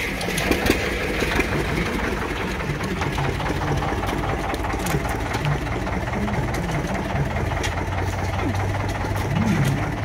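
An engine idling steadily with a fast mechanical clatter.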